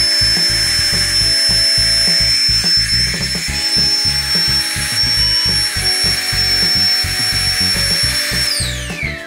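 Flextail Tiny Pump 2x portable electric air pump running in pump mode: a steady, high-pitched motor whine that winds down and stops near the end. Background music plays underneath.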